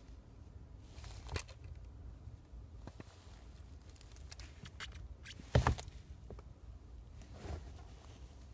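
Racing boot working a car's accelerator pedal: a handful of irregular soft knocks and taps from the sole against the pedal and floor, the loudest about five and a half seconds in, over a low steady rumble.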